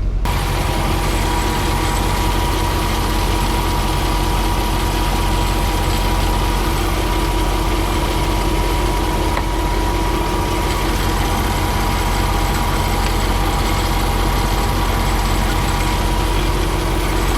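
Diesel engine idling steadily, with a thin steady whine above the engine note.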